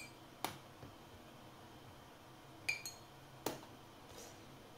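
Scattered taps and clinks of a spoon against a drinking glass as flour is measured out: a tap about half a second in, a couple of short ringing clinks near three seconds, and a duller knock just after.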